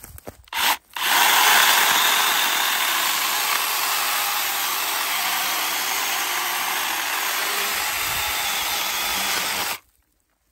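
Small cordless one-handed mini chainsaw cutting through a dead tree branch: a brief burst of the motor about half a second in, then the chain runs steadily through the wood for about nine seconds and stops abruptly near the end.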